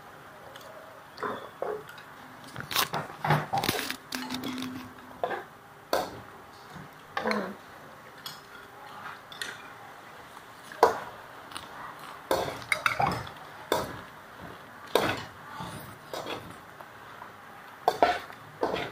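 Metal tongs clanking irregularly against a steel wok as vegetables are tossed and stirred, over a low steady hiss.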